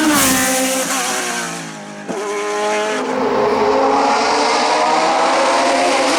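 Hill climb race car engine falling in revs as it slows for a corner, a sharp crack about two seconds in, then the revs climbing again through an upshift as it accelerates away at high revs.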